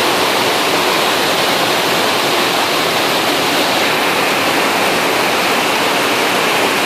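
Floodwater rushing steadily as it pours over the top of an overflowing waterway.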